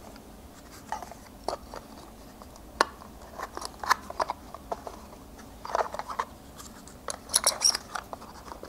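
Small telescope accessories, such as a camera adapter and visual back, being handled and fitted back into a foam-lined aluminium carrying case: scattered light clicks, taps and rustles, thickest near the end.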